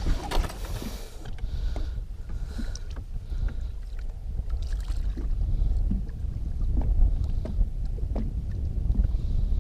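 Lake water lapping and sloshing against the side of a boat as hands hold a musky in the water for release, with a low rumble of wind on the microphone. A brief splash comes in the first second.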